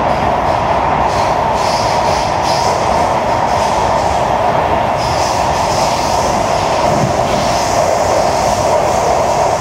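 Running noise inside a Kawasaki–CRRC Sifang C151B metro train travelling between stations: a steady rumble and roar of wheels on rail, with a fainter high hiss that swells and fades several times.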